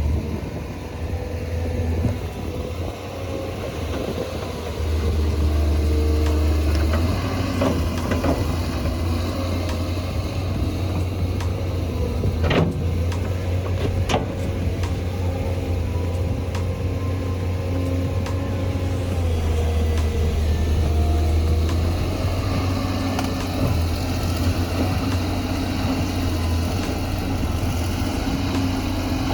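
Engine of a heavy machine running, its pitch rising and falling, with two sharp knocks about halfway through.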